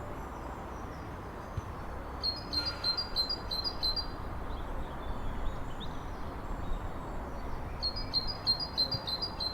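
Great tit singing: two quick runs of repeated high two-note phrases a few seconds apart, over a low steady hum.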